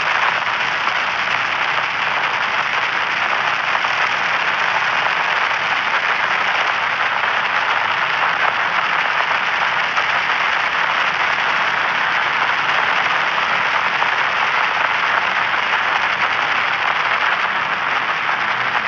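Radio frequency static: a steady crackling hiss with no tones or voices in it.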